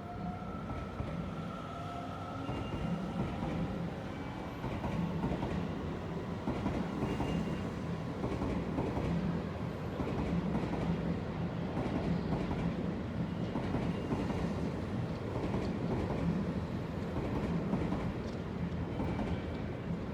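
Seibu Line electric train running past, its wheels clattering over the rail joints in a quick, steady rhythm that builds about a second in.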